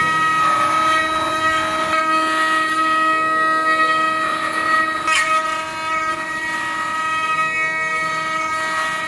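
Eight-head CNC wood router running, its high-speed spindles giving a steady high whine over the noise of the bits cutting into the wood. A short sharp click about five seconds in.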